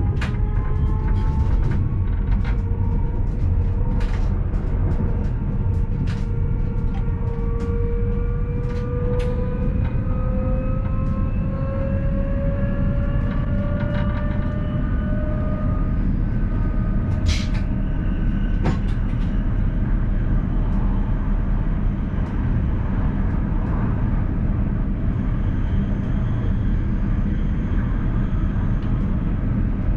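ABe 4/12 'Saphir' electric railcar heard from the driver's cab, running with a steady deep rumble. For about the first half its traction motors whine in several tones that rise in pitch together as the train accelerates, then fade into the running rumble, with scattered sharp clicks from the wheels on the track.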